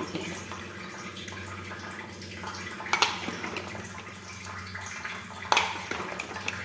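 Kitchen handling noises over a steady low hum: two short clatters, about three seconds in and again about five and a half seconds in.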